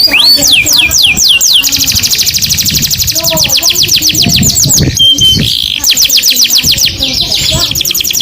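Canary singing in rapid trills of quickly repeated high notes, with a few slower, falling sweeps at the start and a brief steady whistle about five seconds in.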